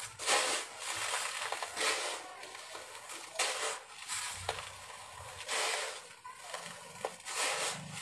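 Dry, gritty concrete mix being scooped by hand and poured back into a bucket, heard as about six separate bursts of grainy hiss as the grains stream down and land, with softer rustling between the pours.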